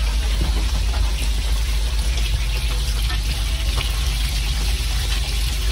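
Steady rush of running water as seasoned fish are washed off, over a constant low rumble.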